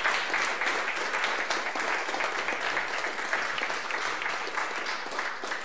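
Audience applauding: a dense, steady clatter of many hands clapping that eases off a little toward the end.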